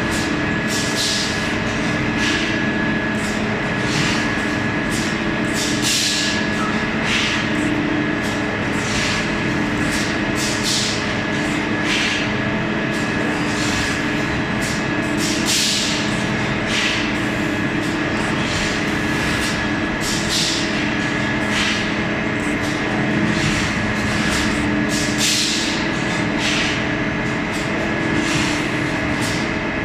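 Automatic brick cutting and stacking line running: a steady machine hum with short hisses about once a second.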